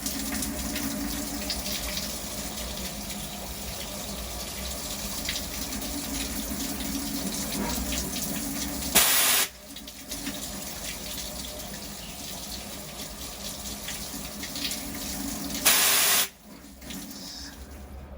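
CNC milling machine tapping holes under flood coolant: a steady wash of spraying, splashing coolant with a low hum from the machine. Two short, loud bursts of hiss come about nine and sixteen seconds in. The hum stops at the first burst, and the wash is quieter after the second.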